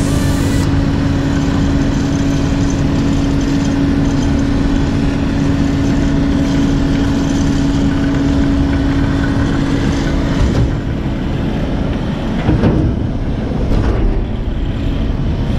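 Dump truck's diesel engine running steadily under load with a steady hum while the bed is tipped to unload asphalt mix. The hum stops about twelve seconds in, and a few rougher knocks and surges follow near the end.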